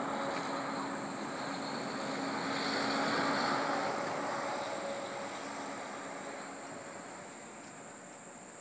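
A distant engine passing by: a steady hum that swells to its loudest about three seconds in and then slowly fades away.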